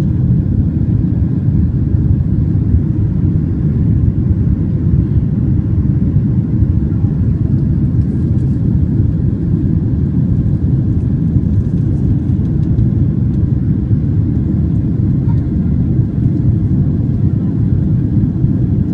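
Boeing 767 airliner heard from inside the cabin: a steady, even low rumble of jet engines and airflow with no change in pitch or level.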